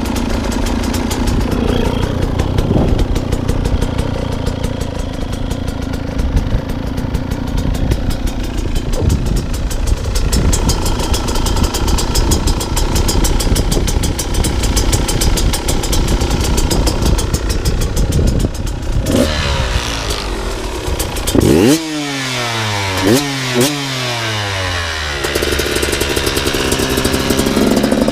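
2014 KTM 200 XC-W two-stroke single-cylinder dirt bike engine running at a fast, crackly idle. About two-thirds of the way through it is blipped several times, each rev rising sharply and dropping back, before settling to idle again.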